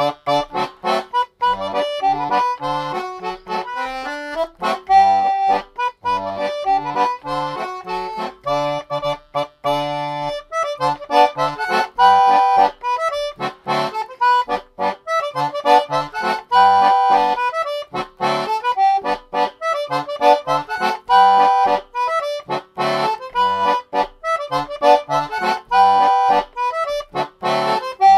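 German concertina playing a polka: a melody of short, detached notes over bass notes and chords, in a steady beat.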